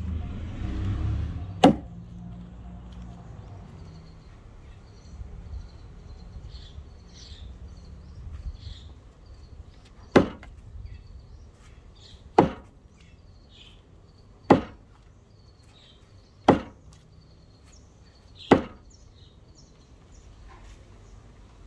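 Axe chopping into wood: six sharp chops, one near the start and then a run of five about two seconds apart from about halfway through.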